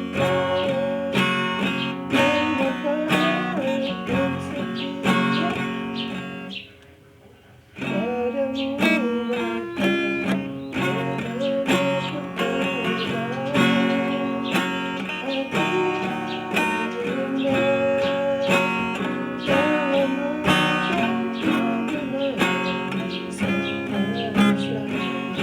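Acoustic guitar music, strummed and plucked chords with a melody line over them, breaking off for about a second near seven seconds in before starting again.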